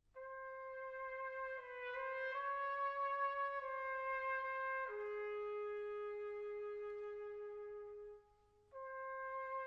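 Solo trumpet playing a slow melody of long held notes as background music. It enters abruptly from silence, holds one long lower note through the middle, and breaks off briefly near the end before the melody picks up again.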